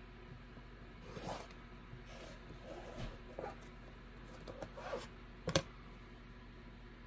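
Rotary cutter blade rolling through quilting cotton along an acrylic ruler on a cutting mat: a few short, faint scraping cuts, with a sharp click about five and a half seconds in.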